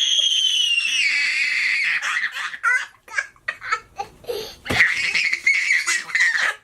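A young girl laughing and squealing: a long high-pitched squeal that slowly falls in pitch, then short bursts of giggling, then another long squeal near the end.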